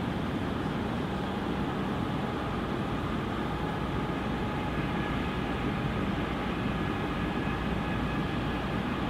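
CN diesel freight locomotives hauling a train of hopper cars past, a steady rumble with faint steady high tones above it.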